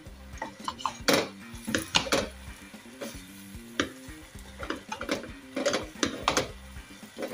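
Wooden spatula stirring chopped vegetables, rice and split mung dal in a stainless steel pot: irregular scrapes and knocks against the pot, over faint background music.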